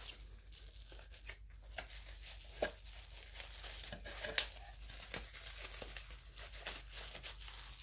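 Paper and packaging wrapping rustling and crinkling as items are handled in and out of a cardboard box, with a few light taps, the sharpest about four and a half seconds in.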